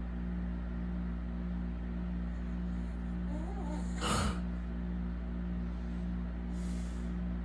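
A sleeping man snorts once, short and loud, about four seconds in, over a steady low hum, and gives a brief breathy hiss near the end.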